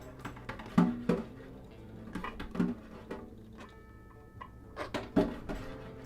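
Background music of pitched, plucked or struck notes that start sharply and fade, with some percussion and a few held high tones about two-thirds of the way through.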